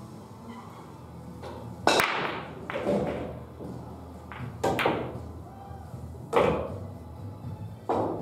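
Pool balls clacking, about five sharp hits spread over several seconds: a cue stroke sends the cue ball into an object ball that drops into a corner pocket, with other ball hits from play at neighbouring tables.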